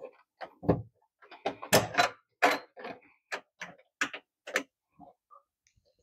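About a dozen irregular sharp metal clicks and knocks, loudest about two seconds in, as a locknut is worked tight onto the flexible metal conduit connector in the breaker panel's knockout.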